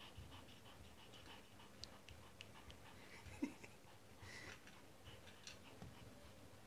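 A cat panting, faint rapid short breaths in and out, out of breath and unable to slow its breathing. A single brief click about halfway through.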